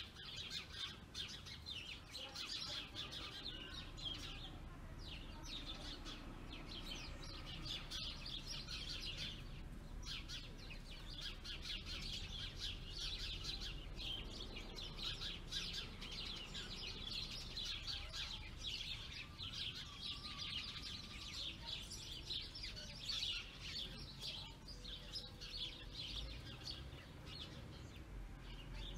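Small birds chirping in a dense, continuous chatter of rapid short high calls, with brief lulls.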